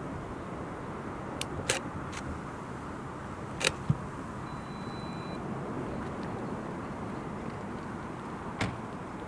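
A lull in a fireworks display: a steady outdoor background hum with a few scattered sharp firework pops, about three of them clear, the last near the end.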